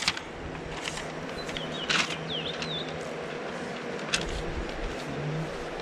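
Outdoor background hiss with a few brief clicks and rustles of packaging being handled, the sharpest about two seconds and about four seconds in. A bird chirps a few short notes between them.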